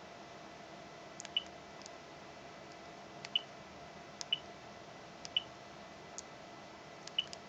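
Keys pressed on a Siemens DECT cordless handset, about six presses roughly a second apart, each a short click with a brief high key beep.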